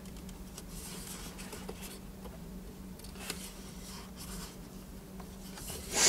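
Faint scratching and rubbing of Mazda MX-5 dashboard trim being handled and worked loose by hand, with a few light clicks and a steady low hum underneath; a louder scrape comes right at the end.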